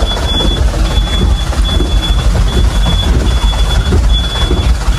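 Truck cab noise on a rough, muddy track: heavy low engine and road rumble with rattling. Over it a high electronic beep sounds again and again, each beep under a second long with short breaks between.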